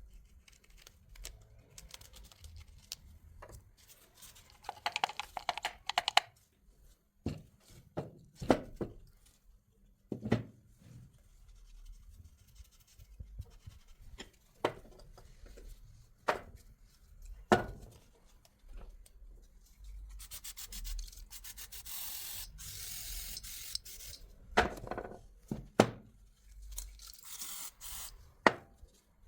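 Hand work on starter motor parts: rubbing and scraping, a longer stretch of sanding-like rubbing past the middle, and scattered sharp knocks and clicks of parts and tools being handled.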